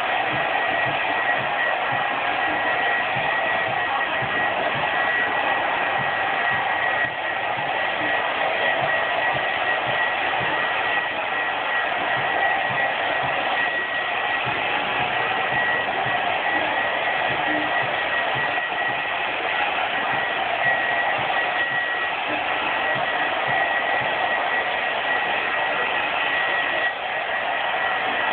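Electric heat gun blowing steadily: a rushing hot-air hiss with a steady high whine, heating a freshly sprayed layer of smoke tint on tail light lenses so the next layer will stick.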